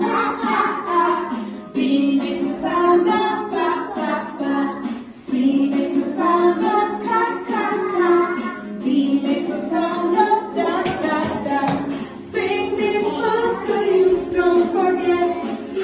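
A children's phonics song: singing voices, a woman's the most prominent, in short phrases one after another.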